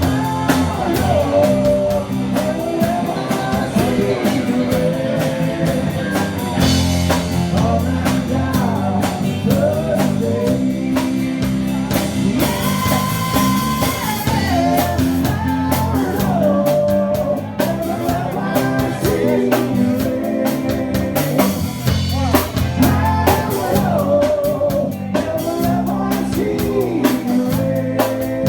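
A band playing a rock cover song: a lead singer over guitar, bass and a steady drum-kit beat.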